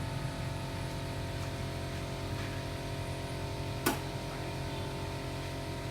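Ryobi RBC52F brushcutter's 52cc two-stroke engine idling steadily, with one sharp click about four seconds in.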